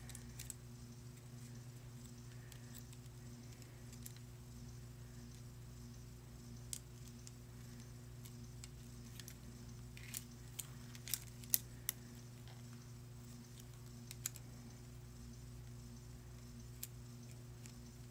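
A steady low electrical hum with a few faint, sharp clicks and taps from small hard objects being handled, most of them bunched together about ten to twelve seconds in.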